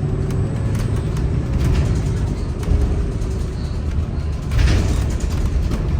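Cabin sound of a 2022 Gillig hybrid-electric transit bus under way: a steady low rumble from the Cummins B6.7 diesel, BAE hybrid drive and road, with small rattles and a brief hiss about three-quarters of the way through.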